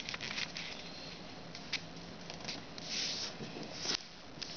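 Sheet of kami origami paper rustling and crackling as hands fold an edge over and press and smooth the crease. There are scattered short crackles, a longer rustle about three seconds in and a sharper crackle just before the end.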